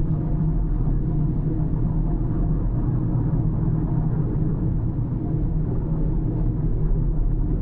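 A car driving at a steady pace: a continuous low drone of engine and tyre road noise, with no changes in speed.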